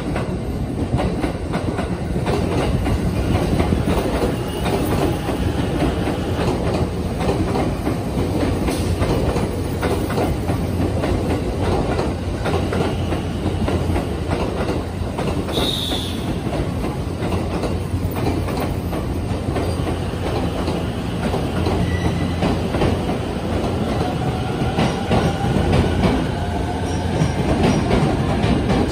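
JR East E257 series 2000-subseries electric train rolling slowly past, its wheels clicking over the rail joints in a steady clickety-clack. A brief high squeal sounds about halfway through.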